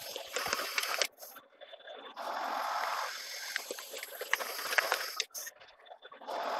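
Metal lathe cutting the face of a large 1018 hot-rolled steel disc. A rushing cutting noise swells and fades in waves, with scattered sharp ticks.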